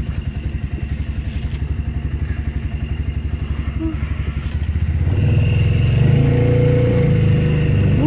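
ATV engine running as the four-wheeler drives across sand, a steady low pulsing that grows louder about five seconds in, when a steady whine joins it.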